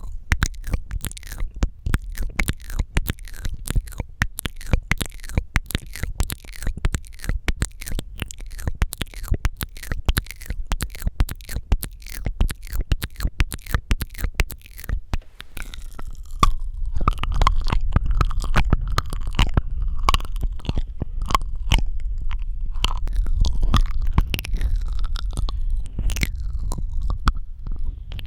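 Close-miked wet mouth sounds: rapid tongue and lip clicks for about the first half. From about halfway, the sounds turn louder and more squelching, with a low rumble underneath.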